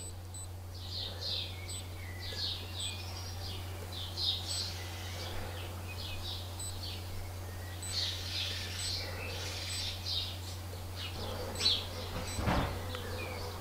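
Birds chirping and calling in the background, short repeated high chirps, over a steady low electrical hum.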